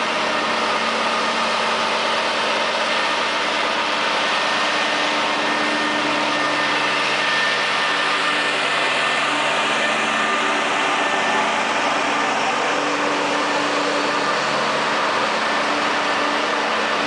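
Diesel engines of heavy-haulage lorries running steadily as they crawl past, with other road traffic. A high tone falls slowly about halfway through.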